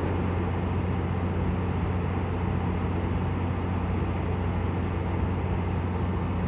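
Steady low drone of heavy machinery running: a constant hum under an even, noisy rumble that does not change.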